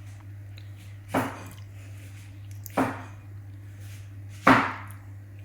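Three sharp knocks about a second and a half apart, the last one the loudest, over a steady low hum.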